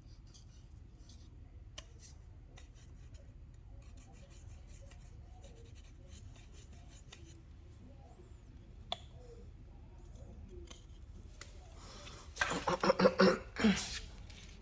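Sheetrock being cut and trimmed by hand: faint scraping and scattered clicks, then about two seconds of louder, rapid rasping strokes near the end.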